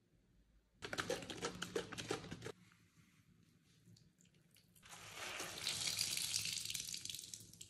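A rubber-gloved hand handles a plastic bottle of cream cleaner, making a quick run of rustling knocks. After a pause, a wet, foamy sponge scrubs cream cleaner across a smooth countertop with a steady swishing hiss.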